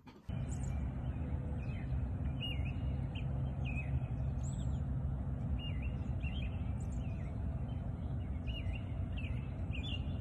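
Small birds chirping in short, repeated calls over a steady low rumble of outdoor background noise.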